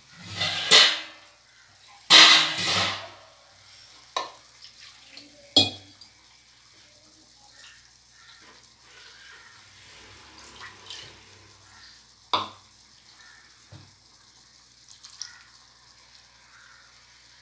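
Kitchen sounds at a steel kadai on a gas stove: two loud bursts of noisy clatter in the first three seconds, then a few sharp knocks of steel utensils over a faint sizzle of the chicken cooking.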